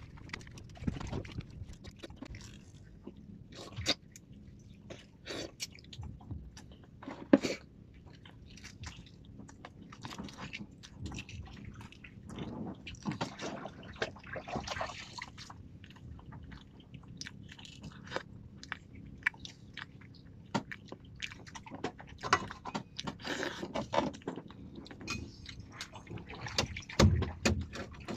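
A person chewing and eating sea urchin close to the microphone, with irregular short clicks and bites.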